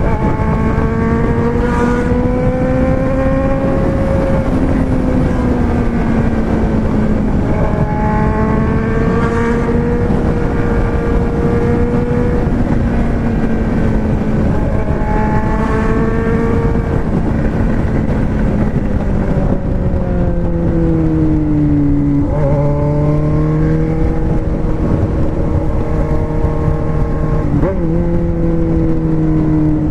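Four-cylinder engine running under way, its revs drifting gently up and down, then dropping to a lower, steady pitch about two-thirds of the way through.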